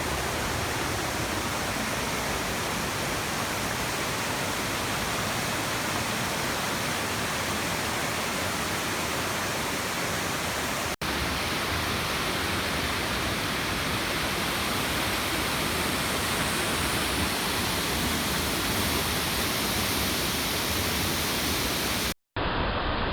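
Waterfall: a steady, even rush of falling water. The sound drops out for an instant about halfway through, and again briefly near the end.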